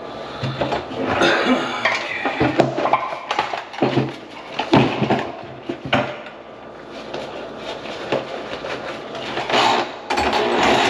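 Hard objects clattering and clinking irregularly while a clogged kitchen sink drain is worked on.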